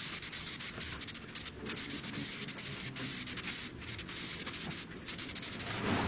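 Aerosol can of Plasti-Dip rubber coating spraying in a run of long hissing bursts with short breaks between them, stopping just before the end.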